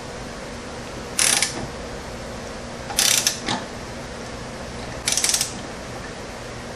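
Torque wrench ratcheting in three short bursts, about two seconds apart, as a nut on the ATV's rear wheel hub is tightened to torque. The wrench's break-over click is barely audible.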